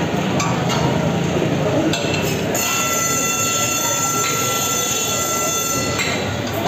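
Street-stall bustle of traffic, voices and clinking steel. About two and a half seconds in, a high squeal made of several steady tones at once starts and holds for about three and a half seconds before cutting off.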